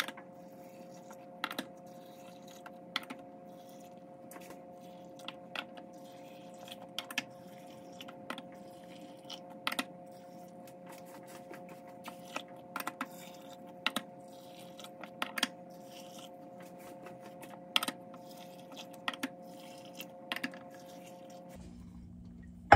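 Light glassy clinks, roughly one a second at irregular intervals, as a plastic canning funnel and a glass measuring cup knock against glass canning jars while hot water is poured in. Under them runs a steady hum that stops near the end.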